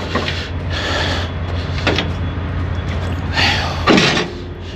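Semi truck's diesel engine idling steadily, with two short hisses and a single sharp knock about two seconds in.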